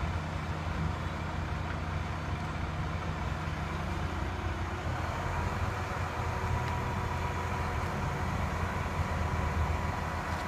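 Boom truck's engine running steadily at a constant speed while its crane holds the truss aloft, with a thin steady whine joining about halfway through.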